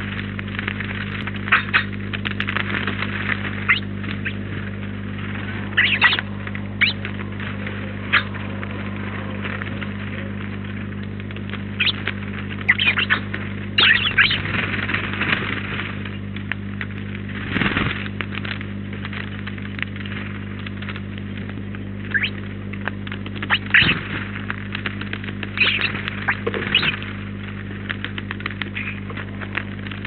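Steady electrical mains hum with scattered short chirps and clicks from sparrows and other small birds feeding.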